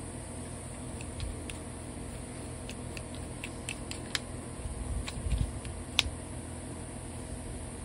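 Scattered light clicks and taps as a Stihl FS200 trimmer's removed carburetor is handled and worked with a toothbrush. A sharper click comes about six seconds in, just after a brief low rumble.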